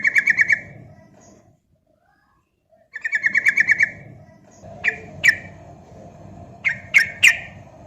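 Sooty-headed bulbul (trucukan) singing: a rapid trill of about ten notes, a second like trill about three seconds later, then five short sharp notes.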